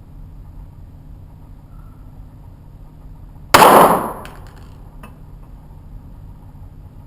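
A single shot from a Smith & Wesson .22 pistol about halfway through, sharp with a short ringing tail. It is followed by a faint click about a second and a half later, after which the pistol is found to have jammed.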